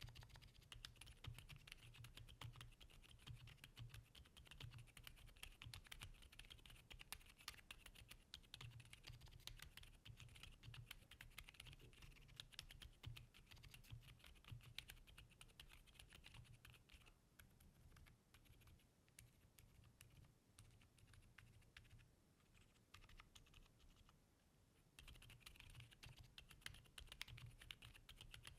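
Typing on a Neo80 custom mechanical keyboard with Akko Fairy switches and GMK keycaps: a fast, steady run of soft, muted keystrokes, a build made to be very quiet. The keystrokes thin out and soften for several seconds past the middle, then pick up again near the end.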